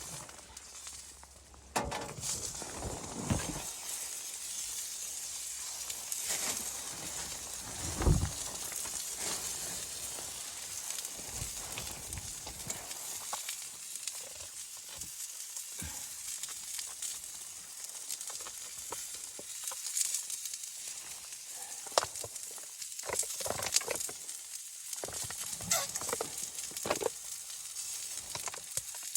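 A steady sizzling hiss with scattered clicks and knocks, the loudest knock about eight seconds in.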